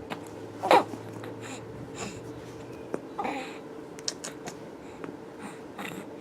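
A baby's short vocal sounds and breathing noises: one brief loud squeal about a second in and a softer sound a few seconds later, with scattered small clicks over a faint steady hum.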